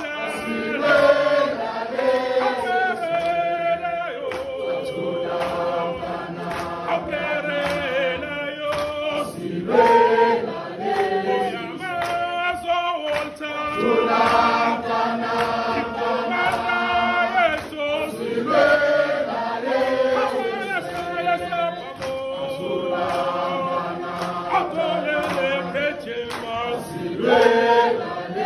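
A group of voices singing a South African struggle song together, with a man's voice leading.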